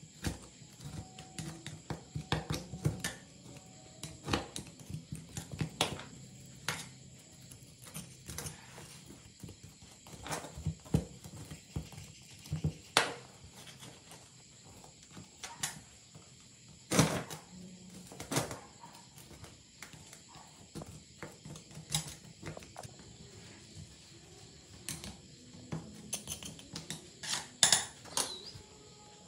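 Steel screwdriver scraping and picking caked dirt and rust off the base of an old rusty Blackhawk hydraulic bottle jack: irregular scrapes and clicks, with a few sharper knocks.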